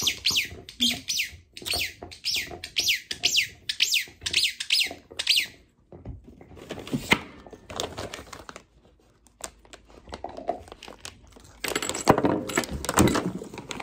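A squeaky dog toy squeaking over and over, two or three high squeaks a second, each falling in pitch, for about the first five seconds. Then a plastic treat bag rustles and crinkles, loudest near the end.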